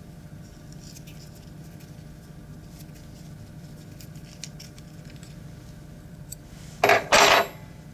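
Faint small clicks and scrapes of a hex key unscrewing the steel bolt from a puukko knife's carbon-fibre handle, over a steady low hum. About seven seconds in there is a short, loud burst of noise.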